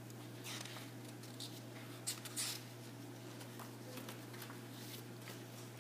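A few faint rustles and light taps of a thin paperback book's pages being handled and turned, over a steady low hum in a quiet room.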